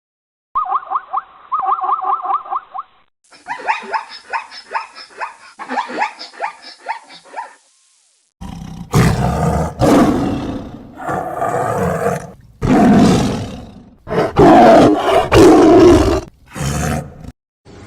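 A big cat roaring about five times in the second half, loud and deep, each roar one to two seconds long. Before it come about eight seconds of rapid, repeated calls from other animals, in two separate clips.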